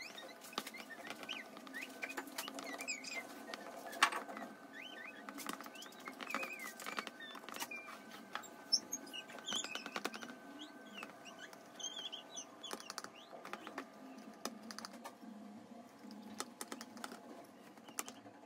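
A knife cutting through the crisp baked cheese crust of a pan pizza: irregular crunching, scraping and small clicks as the blade goes through and taps the metal tray, over a faint steady hum.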